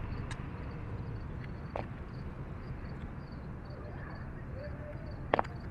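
Hand trowel scraping and scooping soil, backfilling dirt around a buried pop-up sprinkler head, with a few light clicks and one sharper tap near the end over a steady low background rumble.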